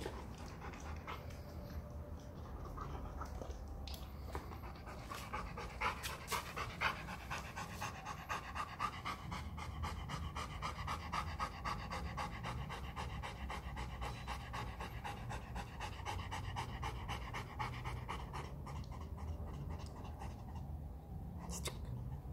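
Rottweiler panting rapidly and steadily with its mouth open, louder through the middle stretch.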